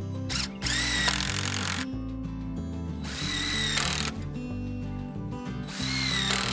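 Cordless drill driving screws into wooden fence boards in three short runs, each whine winding up in pitch and then holding steady. Background music plays underneath.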